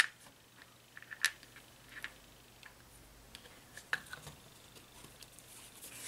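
Faint, scattered clicks and light taps of small 3D-printed resin pieces and a paintbrush being handled and set down on a craft mat, the sharpest one at the very start.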